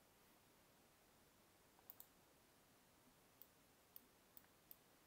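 Faint computer mouse clicks over near silence: a quick pair about two seconds in, then four single clicks spaced a half-second or so apart near the end.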